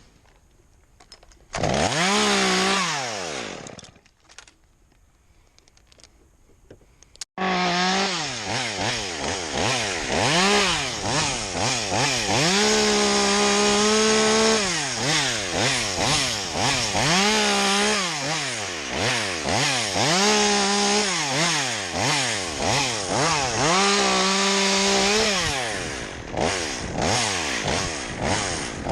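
A two-stroke chainsaw revs briefly about two seconds in and falls back. Then, from about seven seconds in, it runs without stopping, its throttle rising and falling again and again and held at full speed several times for a second or two.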